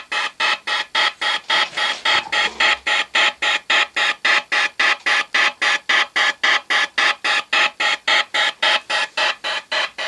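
Model steam launch's steam engine running on the test stand, chuffing steadily and evenly about four times a second.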